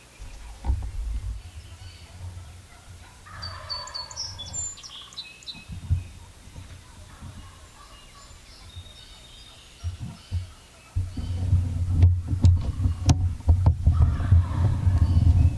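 Wild turkey gobbling about three seconds in, with thin higher bird chirps around it. From about eleven seconds in a loud low rumble takes over, with a few sharp knocks.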